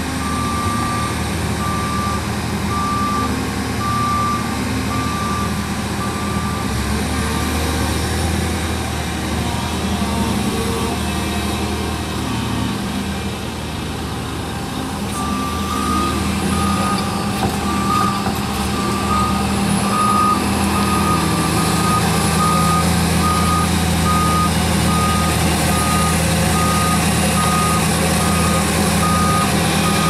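Heavy diesel engines of a tracked excavator and a dump truck running, with a reversing alarm beeping about once a second. The beeping stops about 8 seconds in and starts again about halfway through, when the engines grow louder.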